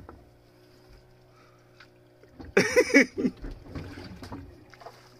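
Small wooden fishing boat's engine running at a faint, steady low hum. About two and a half seconds in comes a short, loud vocal outburst, a shout or grunt from the crew.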